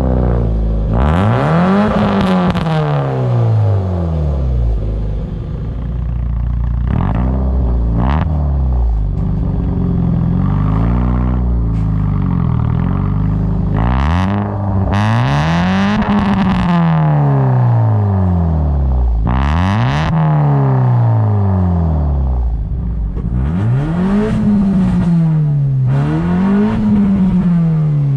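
Hyundai Getz engine revved repeatedly through a sport exhaust, the note climbing and dropping back again and again, several quick blips near the end. Sharp pops and crackles come from the exhaust as the revs fall.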